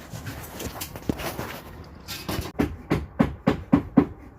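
Rustling and scraping, then a quick run of about seven sharp knocks, roughly four a second, that stops about a second before the end.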